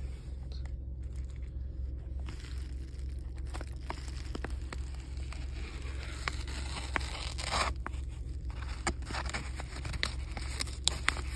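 A blade slitting open a paper bubble mailer: scraping and tearing along the seam with crinkling of the envelope, in irregular short scratches that come thicker after the first few seconds. A steady low hum runs underneath.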